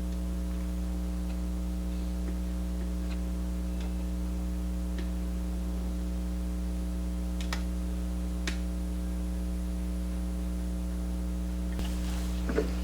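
Steady electrical mains hum with a few faint ticks scattered through it, and a couple of light knocks near the end.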